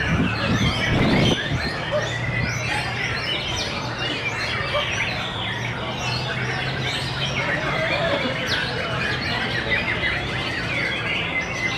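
White-rumped shama (murai batu) singing among a dense chorus of many other caged songbirds, a continuous tangle of overlapping chirps and whistles. A low steady hum runs underneath, and the sound is louder and deeper in the first second and a half.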